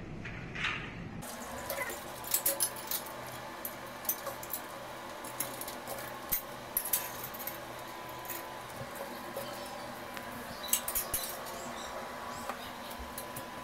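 Metal snap hooks and chains clinking in scattered clusters of sharp clicks as hanging bars are handled and clipped on a steel Pilates trapeze frame, over a faint steady hum.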